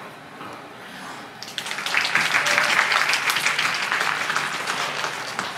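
Audience applause breaking out about a second and a half in: many hands clapping at once, swelling quickly and then easing off a little.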